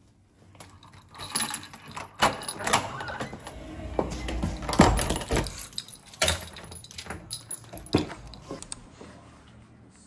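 A bunch of keys jangling in a front-door lock, with a run of clicks, clunks and knocks as the lock and lever handle are worked and the door is opened and closed. The loudest knock comes about halfway through.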